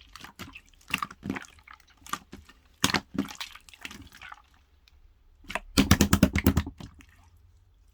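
Clear slime being squeezed and stretched by hand, making irregular wet clicks and pops, with a quick run of pops about six seconds in.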